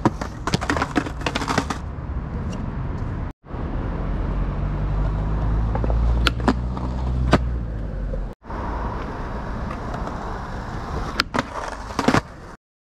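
Skateboard wheels rolling on concrete with the trucks grinding along a ledge in a frontside 5-0 and a nose grind, with sharp clacks of the board popping and landing. The sound comes in three short takes that each cut off suddenly.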